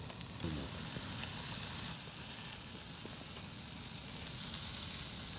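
Slices of meat sizzling on a small charcoal grill, a steady hissing sizzle.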